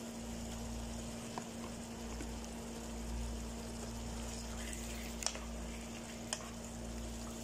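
Chicken pieces and a tomato, garlic and ginger base cooking in a non-stick frying pan with a low, steady sizzle. A wooden spatula knocks lightly against the pan a couple of times in the second half as the chicken is stirred in.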